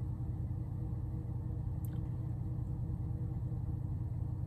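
Steady low rumble of a standing car, heard from inside the cabin, with one faint click about two seconds in.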